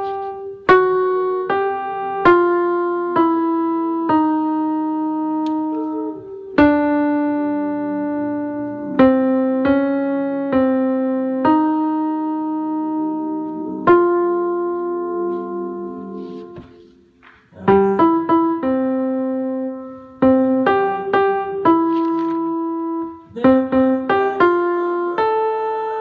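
Piano playing a slow melody, single notes and occasional two-note intervals struck one after another and left to ring out. The playing breaks off briefly about two thirds of the way through, then resumes with quicker notes.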